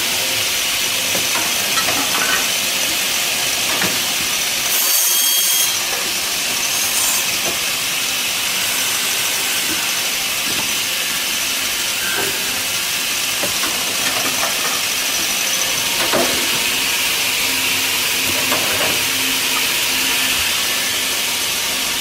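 Automatic double-end cutting and drilling machine running loud and steady on wooden rails: saw and drill motors whirring with a constant hiss, a few light knocks, and a brief sharp hiss about five seconds in.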